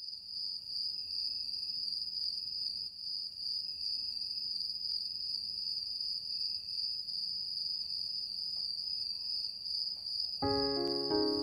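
Crickets chirping in a steady, unbroken high trill, a night-time ambience. Near the end, a lower pitched sound with changing notes comes in over it.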